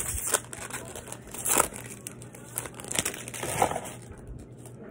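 Crinkling of a plastic-foil baseball card pack wrapper being handled, in several short bursts, the loudest about a second and a half in.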